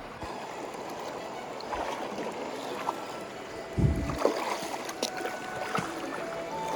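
Footsteps wading through shallow river water, splashing irregularly over the flowing stream, with one heavier splash about four seconds in.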